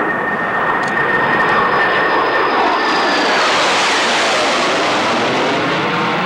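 McDonnell Douglas F-4 Phantom II fighter jets flying past with their J79 turbojets, loud. A high steady whine dips slightly in pitch about three seconds in, while the jet roar broadens and peaks around four seconds in.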